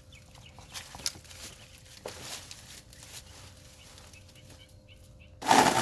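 A few light clicks and knocks, then near the end a Portland 14-inch electric chainsaw starts up suddenly and loudly on a test run.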